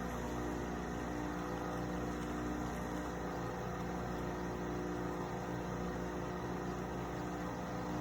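Steady mechanical hum of a small motor or pump running evenly, with several steady tones.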